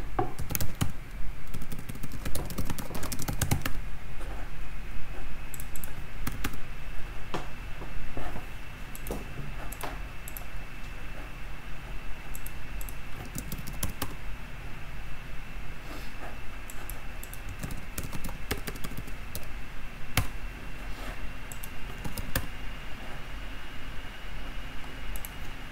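Typing on a computer keyboard: quick runs of keystrokes in the first few seconds and again around six to eight seconds in, then scattered single clicks.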